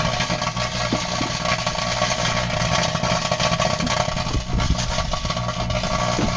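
Microwave oven running with a steady electrical hum, with scattered faint crackles of arcing from foil inside.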